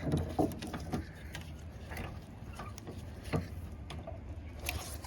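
Scattered small clicks and knocks of hands and a tool working loose a part inside a car door, with one louder knock about three seconds in.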